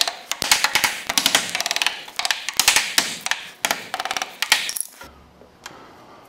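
Hammer blows driving a wooden filler block into place against the wall framing, a rapid run of strikes that stops about five seconds in.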